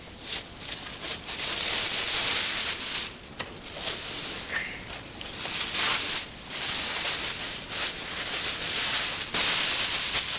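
Close rustling and scraping of paper and cardboard packaging being handled, in uneven swells with a few small clicks.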